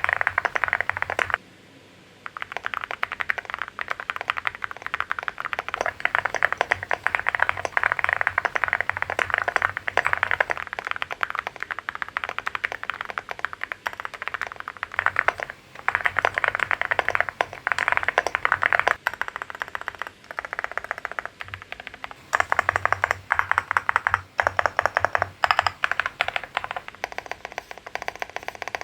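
Fast, continuous typing on a Leobog Hi75 mechanical keyboard fitted with Haimu Middle Night and Vertex V1 switches, keystrokes clacking in quick succession with a brief pause a couple of seconds in. About three quarters of the way through the keystrokes turn sharper and brighter.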